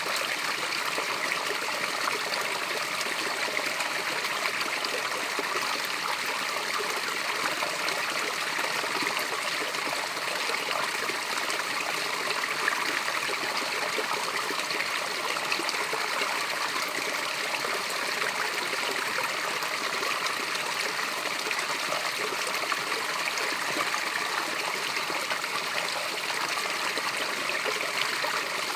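Small natural waterfall: water pouring over rocks in a steady, unbroken splashing rush, with little deep rumble.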